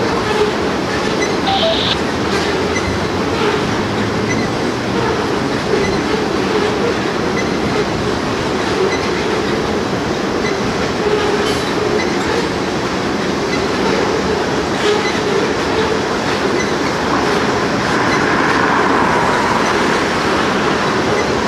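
Freight train of tank cars rolling steadily past: a continuous rumble of steel wheels on the rails, with clickety-clack clicks as the wheels cross rail joints.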